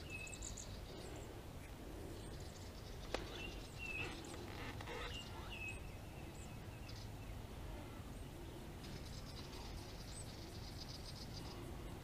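Faint outdoor ambience with birds chirping in short calls. A single sharp click comes about three seconds in, and a high buzzing trill runs from about nine seconds in until near the end, over a low steady rumble.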